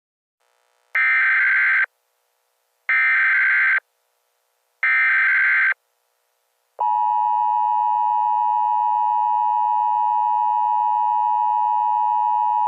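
Emergency Alert System SAME header: three short bursts of screechy digital data tones about two seconds apart, followed from about halfway by the steady two-tone EAS attention signal.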